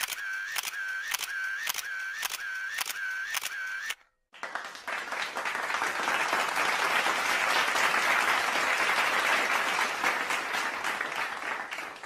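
A camera shutter clicking repeatedly, a little over two shots a second, for about four seconds. It stops suddenly, and after a short gap applause starts, builds up and holds steady.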